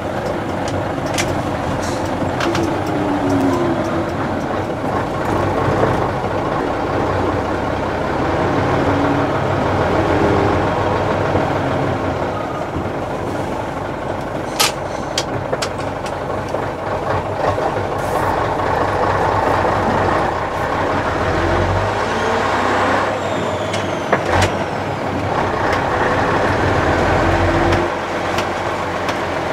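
Scania-Vabis LS 76 truck's 11-litre turbocharged diesel engine running under way, heard from inside the cab. Its deep note shifts a couple of times, and a few sharp clicks and knocks sound over it.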